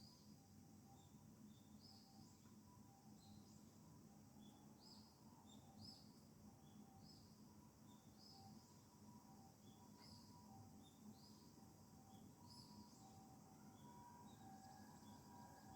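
Faint outdoor ambience: small birds chirping repeatedly in short high calls, with a distant ambulance's two-tone siren faintly alternating between a higher and a lower pitch.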